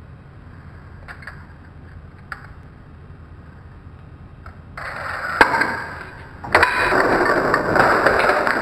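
Room quiet with a few faint clicks. About five seconds in the toy chain reaction goes off with a knock, and from just over six seconds there is a continuous rattling roll of a toy fire truck's wheels running down a wooden board.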